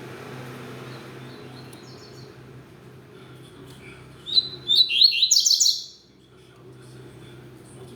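Double-collared seedeater (coleiro) singing: a loud phrase of rapid, high notes about four seconds in, lasting under two seconds, with a few faint chirps before and after. A low steady hum runs underneath.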